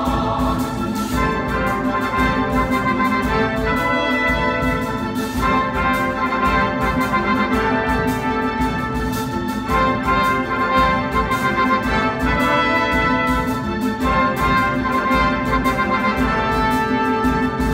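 A live orchestra playing an instrumental passage led by trumpets and trombones, over a steady beat of drums; the choir is not singing here.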